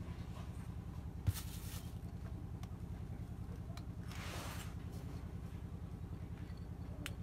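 Low, steady hum of an engine running, with a fast even pulse. A sharp click comes about a second in, and a brief rustle follows around four seconds in.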